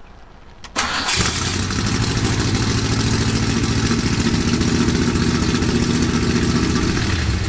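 Car engine started by a push button: it starts up about a second in and then runs steadily at idle.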